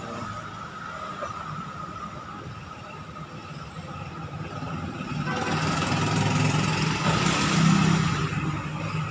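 Motor vehicle engine noise over a steady background hum, swelling from about halfway, loudest near the end, then easing off, like a vehicle passing.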